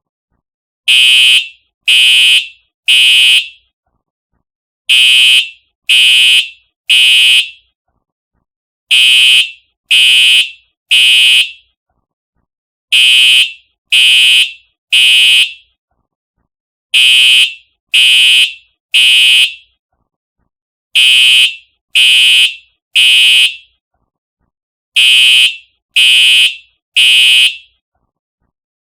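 Simplex TrueAlert fire alarm horn sounding the temporal-three evacuation pattern: groups of three loud, buzzy half-second blasts a second apart, each group followed by a pause and repeating every four seconds.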